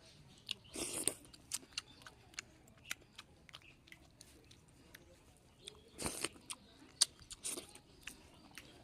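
A person chewing and biting into spicy chicken curry with vegetables, close to the microphone: irregular wet mouth clicks and crunches, densest about a second in and again around six to seven and a half seconds.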